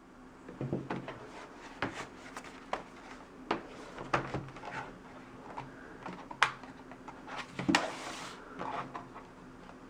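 Scattered plastic clicks and knocks from a Lenovo ThinkPad E570 laptop being handled as its battery is unlatched and pulled out, over a faint steady hum.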